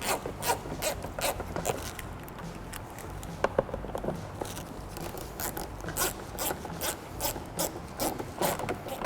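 Hand ratchet with a 10mm socket clicking in short runs of quick ticks as door-panel screws are run in.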